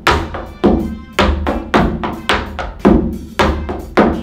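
Tap shoes striking a wooden tap board in an even, fast rhythm: ball, heel and dig steps at about two strong taps a second, with lighter taps in between. Each strike rings briefly off the board.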